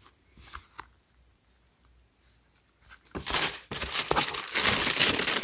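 Tissue paper in a cardboard shoe box rustling and crinkling loudly as a hand pushes it aside, starting about three seconds in, after a few faint handling clicks.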